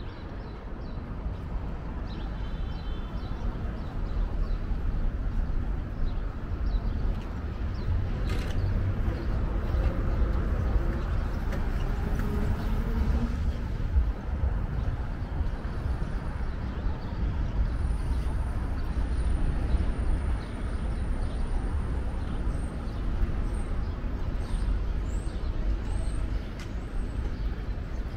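Street traffic: a steady low rumble of passing cars, buses and trucks. In the second half a thin high whistle is followed by a run of short high chirps.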